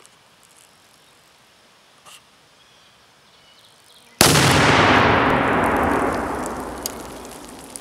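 One 1 lb Tannerite binary exploding target detonating inside a watermelon, set off by a .223 rifle bullet: a single sudden loud boom about four seconds in, followed by a long rolling echo that fades away over about three seconds.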